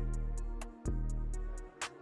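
Background music: a beat with long, deep bass notes, a new one coming in about a second in, under a steady ticking rhythm.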